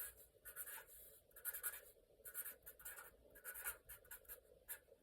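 Faint scratching of a pen drawing a circuit diagram, in a run of short, irregular strokes.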